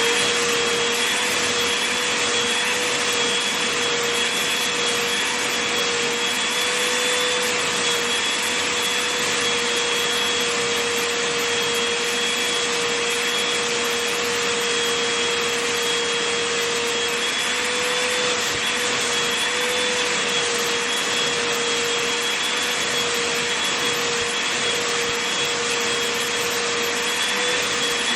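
Vacuum cleaner running steadily over a blanket: an even rush of air with a constant whine, unchanging throughout.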